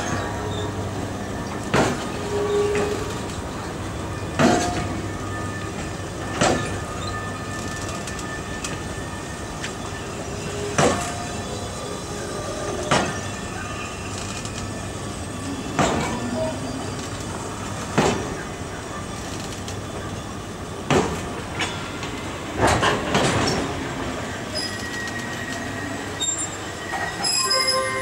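EP1M electric locomotives rolling slowly along the station track, their wheels knocking sharply over rail joints every two to three seconds, over a steady low electrical hum with some thin wheel squeal.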